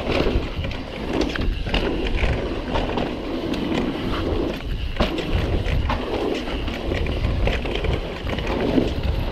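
Guerrilla Gravity MegaTrail mountain bike descending a dirt singletrack: tyres rolling over the trail, wind buffeting the microphone, and frequent small knocks and rattles from the bike over bumps.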